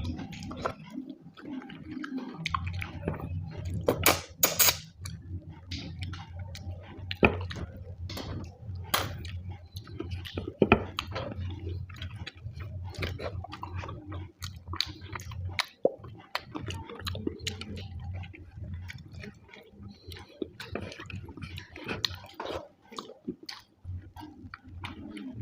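Close-up chewing and mouth sounds of a person eating rice with fish and egg curry: wet smacks and sharp clicks, a few louder ones around four to five seconds in. A low steady hum runs underneath from about two seconds in until about the middle, then stops.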